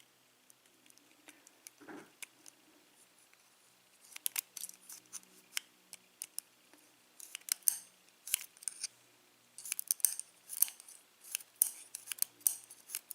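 Small metal clicks and light scrapes of a euro lock cylinder's pins and springs being worked out of their chambers. Faint for the first few seconds, then a busy run of quick, sharp clicks.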